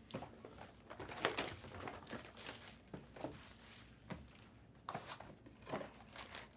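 Plastic trading-card packaging being crinkled and torn open by hand, in faint, scattered short rustles.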